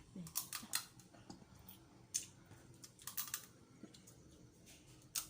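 Irregular sharp clicks and crackles of boiled seafood being handled and eaten by hand, a few separate snaps with a quick cluster about three seconds in.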